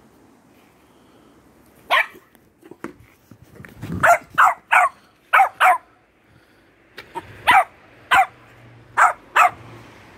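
Small dog barking: about ten short, high barks, mostly in quick pairs, starting about two seconds in.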